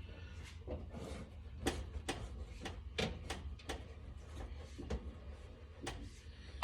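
Rubber door seal being pressed and pushed onto a Jeep J-10 truck's door opening by hand: a string of irregular taps and clicks over a steady low hum.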